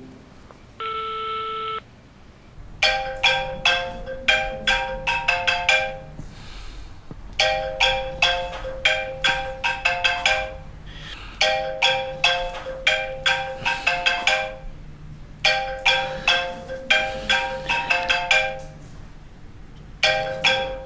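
A smartphone ringtone: the same quick melody of short, fast-fading notes plays four times with short pauses between, after a single steady beep about a second in.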